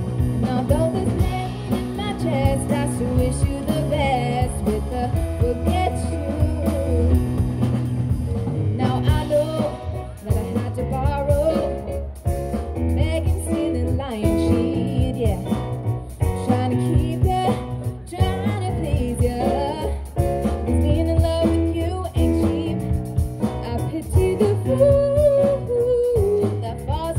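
Live band playing: a woman singing over keyboard, drum kit and upright bass.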